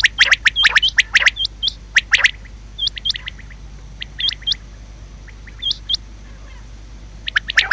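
Common quail hen calling: quick runs of short, sharp, high calls, many ending in an upturned whistle. The calls come thickly for the first two seconds, thin to a few scattered ones, then start thickly again near the end.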